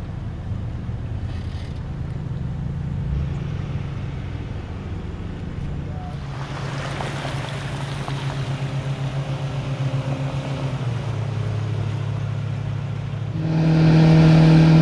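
Jet boat's outboard motor running under way, with the rush of water and spray from about halfway through and the engine note dropping a little before the end. Near the end it becomes much louder and closer: a steady engine note over the wake.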